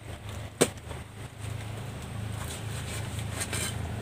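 Knife prying and splitting open a ripe jackfruit: a sharp snap about half a second in, then faint crackles as the fruit is pulled apart, over a steady low hum that comes in after about a second and a half.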